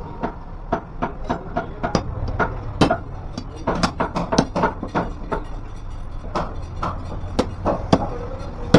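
Heavy butcher's knife chopping through goat trotters on a wooden chopping block: a run of sharp knocks, about three a second, with a short pause a little past the middle.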